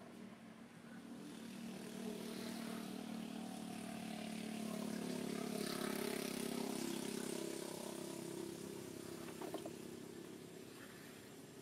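A motor vehicle's engine passing by: it grows louder to a peak about halfway through, then fades.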